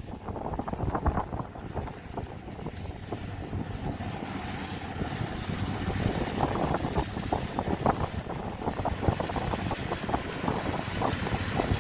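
Kubota DC70 combine harvester's diesel engine running steadily under load, with an irregular crackling rustle and wind buffeting the microphone.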